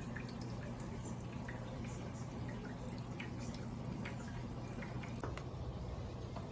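Running saltwater aquarium: a steady low hum of the tank's pumps under many small drips and trickles of water.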